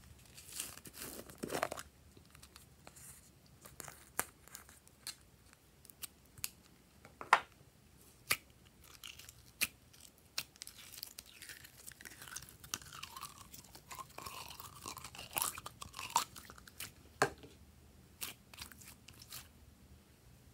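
Gold slime being handled and poked with a finger in its small plastic jar: scattered sharp sticky clicks and pops, with denser crackling through the middle.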